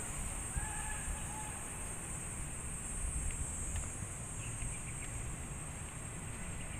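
Outdoor ambience: wind rumbling on the phone's microphone under a steady high-pitched drone, with a couple of faint chirps about a second in.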